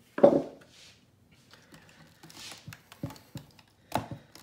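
Small plastic clicks and taps as hands unplug wire-harness connectors and handle the motherboard and plastic chassis of an opened Shark IQ robot vacuum, with one louder thump about a quarter second in.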